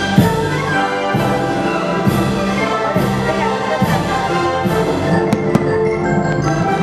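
Orchestral show music with brass, played loudly as the fireworks show soundtrack. A couple of sharp pops from the fireworks cut through about five seconds in.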